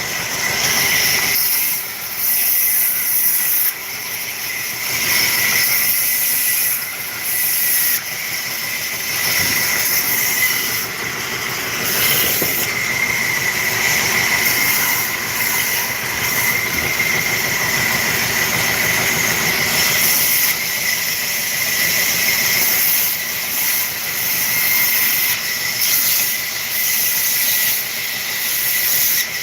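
A woodworking machine running with a steady hiss and a high, constant whine, dipping briefly in loudness every few seconds.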